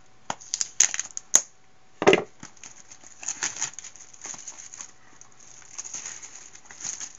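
A knife slicing the cellophane wrap on a sealed trading-card box, with a few sharp clicks, then the cellophane crackling as it is torn and pulled off the box. The loudest moment is a crunchy rip about two seconds in.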